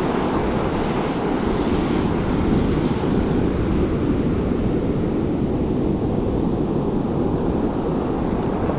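Wind buffeting the microphone over the steady rush of surf breaking on the beach. Two brief faint high-pitched rasps come through about two and three seconds in.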